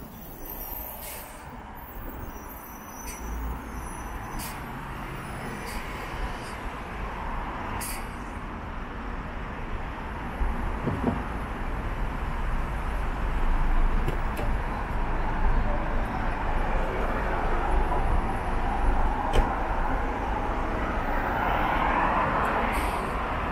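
Steady traffic noise from a busy multi-lane city road, with a city bus close by at the start and cars passing. It grows louder in the second half.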